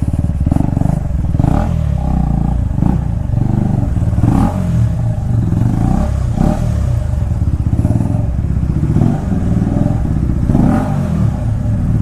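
KTM Duke 250's single-cylinder engine running through an underbelly exhaust while riding, its revs rising and falling repeatedly as the throttle opens and closes.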